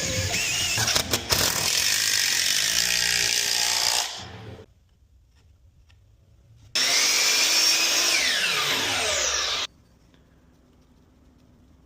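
Power tool running in two bursts, the first about four seconds long and winding down, the second about three seconds with a whine falling in pitch before it stops abruptly.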